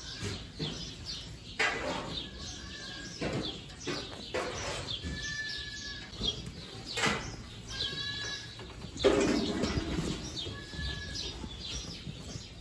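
Goat barn ambience: small birds chirping again and again, with the shuffling and knocking of goats moving about in the bedding; a louder rustle about nine seconds in.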